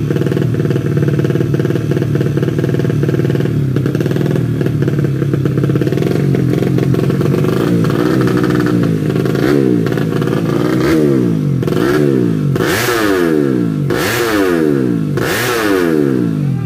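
Tuned 130cc four-stroke underbone motorcycle engine running steadily at a fast idle, then blipped up and down about five times in quick succession in the last six seconds.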